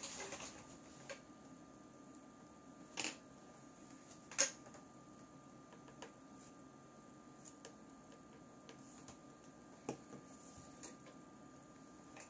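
Sparse small clicks and short scrapes, a few seconds apart, from a blade and tools working leftover adhesive off a phone's LCD screen, over a faint steady whine.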